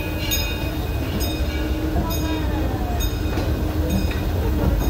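Steam-hauled Disneyland Railroad train running, heard from an open passenger car: a steady low rumble with regular knocks about once a second. A faint wheel squeal slides down in pitch about two seconds in.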